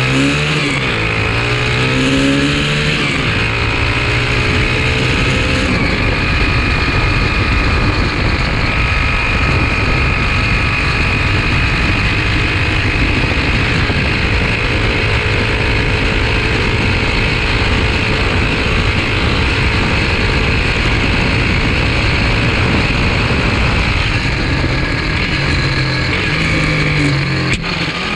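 Small dirt bike's engine running loud through its exhaust while being ridden, revving up with a rising pitch in the first few seconds, holding fairly steady, then changing pitch again near the end. Wind rushes over the microphone.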